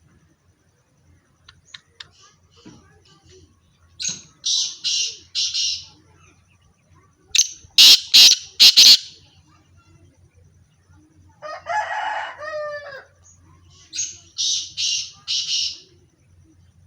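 Black francolin calling: three rapid series of harsh, grating syllables, three or four to a series, the middle series the loudest.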